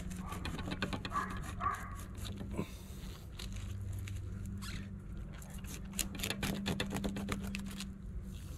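Fillet knife cutting down the middle of a raw flounder along its backbone: a run of small clicks and crackles as the blade works through the skin and flesh. A steady low hum runs underneath.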